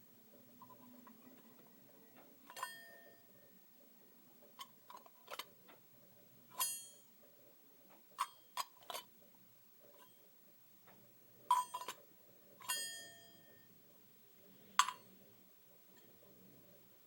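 Light taps and clinks on small hard objects at irregular intervals; several of the strikes ring briefly with a bright tone.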